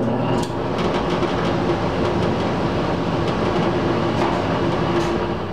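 Belt-driven squirrel cage blower running steadily, a whooshing rush of air over a low motor hum, beginning to wind down right at the end. The freshly adjusted drive belt is, by the owner's judgment just afterwards, a little too tight.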